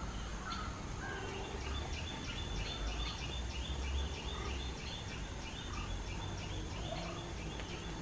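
Indian grey hornbill calling a rapid, even series of short high notes, about three a second, starting a second or two in, over a low rumble.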